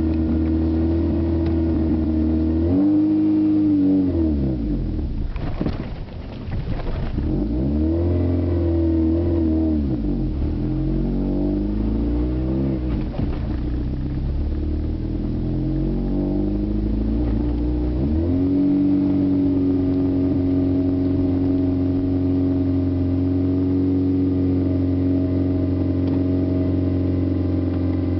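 A 1993 Asüna Sunfire's freshly installed spare engine, heard from inside the cabin, idling and then revved up and down several times before settling back to a steady idle about eighteen seconds in.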